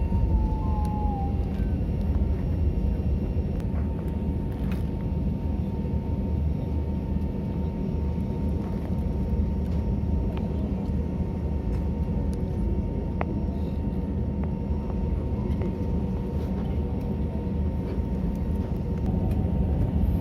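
Airliner cabin noise after landing: a steady low rumble from the engines and airflow, with a thin steady whine. A brief wavering whine fades out in the first second or two.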